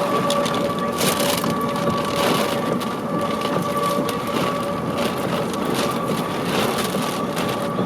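Wind and rain rushing in through an open car window while driving, with irregular crackling buffets on the microphone. A faint steady high tone sounds underneath.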